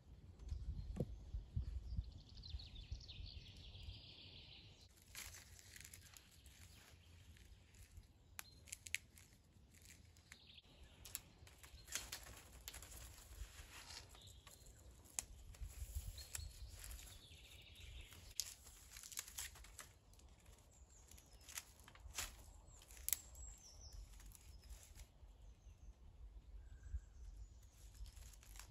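Dry reed stalks rustling with scattered clicks as bundles of reeds are handled and laid against a wooden pole frame, with faint bird chirps in the background.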